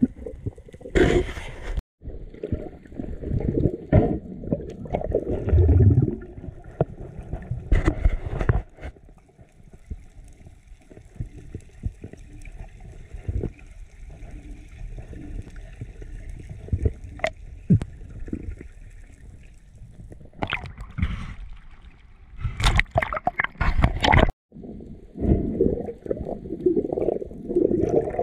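Underwater sound of water rushing and gurgling against a camera housing, with irregular knocks and clicks as the diver moves. The sound cuts out completely twice, near the start and near the end.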